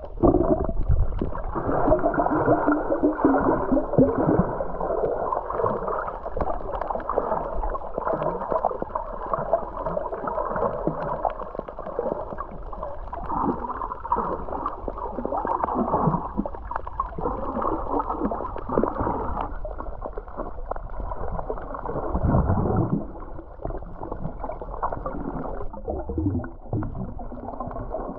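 Muffled underwater sound from a camera's waterproof housing while snorkeling: a steady wash of water movement and gurgling, with occasional low thumps from the swimmer's movement.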